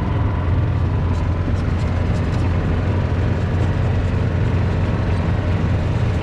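The engine of a vehicle running steadily while it drives slowly across a grass field, a constant low hum with no change in pace.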